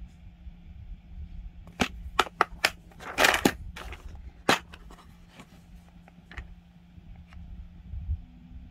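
Hard plastic squid jigs clacking against each other and against a clear plastic tackle box as they are picked up and rearranged by hand: a run of sharp clicks and knocks, busiest about three seconds in, then a few fainter taps.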